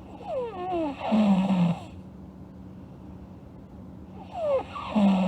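A sleeping girl snoring twice, about four seconds apart. Each snore starts with a falling, whistle-like sound and ends in a louder, low rasp.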